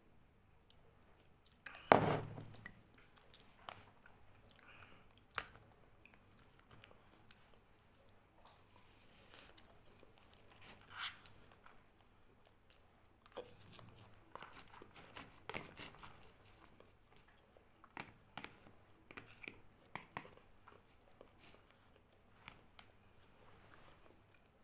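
A person eating a meal close to the microphone: chewing, with scattered small clicks and taps, and one loud knock about two seconds in.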